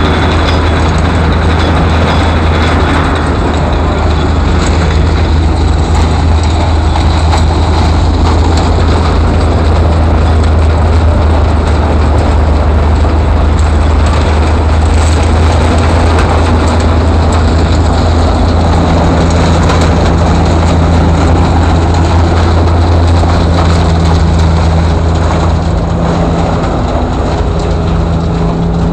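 Corn shredder running under power from a horse-powered sweep: a steady, loud, low mechanical drone.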